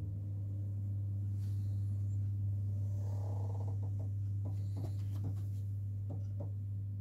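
A steady low hum comes on suddenly and holds at an even pitch, with a few faint clicks and knocks over it.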